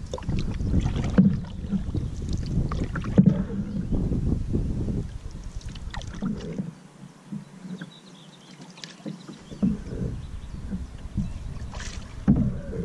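Old Town Saranac 146 canoe moving on a river: wind rumbling on the microphone, with water splashing and scattered knocks against the hull. The wind drops away for a few seconds in the middle.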